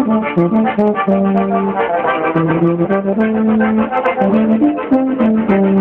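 A small band of brass and wind instruments, a slide trombone among them, playing a melody together in held notes that change every half second or so.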